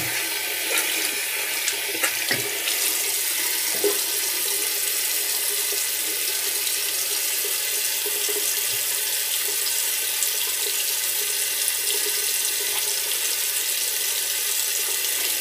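Water running steadily from a tap into a sink, an even hiss, with a couple of soft knocks in the first few seconds.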